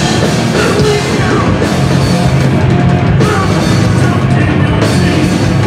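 Loud live heavy rock from a two-piece bass-and-drums band, the drum kit hit hard under the bass.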